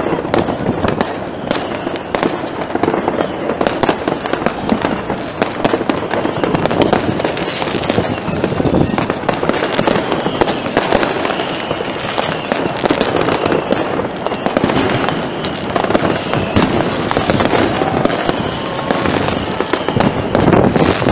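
Fireworks and firecrackers going off without a break, a dense run of sharp bangs and crackles, with people's voices beneath.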